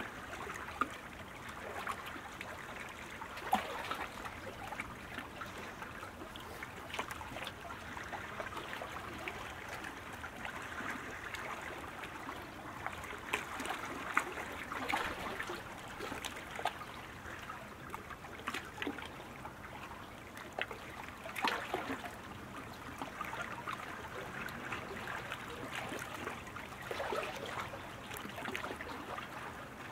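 Steady rushing, trickling water noise, with a few sharper clicks scattered through it.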